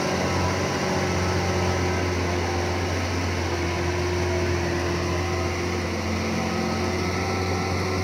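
Diesel engine of a loaded MT60 off-road mining dump truck running steadily as the truck drives. It is a constant low-pitched sound that does not rise or fall.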